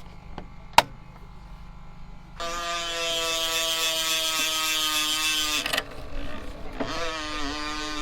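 Bicycle rear hub freewheel buzzing as the wheel spins freely: a fast ratchet whir of the pawls that runs for about three seconds, stops, and comes again near the end a little lower in pitch, sinking slowly as the wheel slows. A single sharp click comes under a second in.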